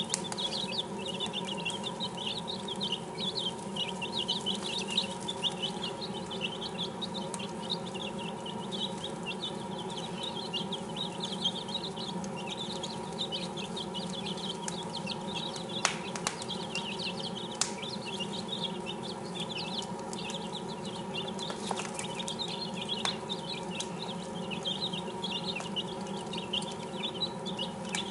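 A brood of six-day-old chicks peeping constantly in a dense chorus of short high chirps, over a steady low hum, with a few sharp clicks in the second half.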